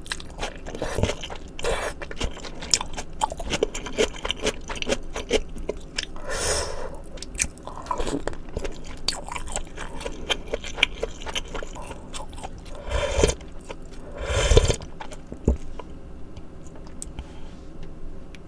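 Close-miked ASMR eating sounds: chewing and crunching mouthfuls of malatang, the spicy Sichuan hot-pot soup, with many small wet mouth clicks. A few louder bites come about six and a half, thirteen and fourteen and a half seconds in, and it goes quieter near the end.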